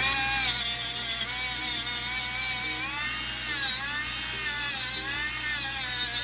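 Cordless rotary tool spinning a radial bristle wheel, starting up and running at high speed with a steady whine whose pitch dips and recovers several times; it is burnishing soft solder to a shine.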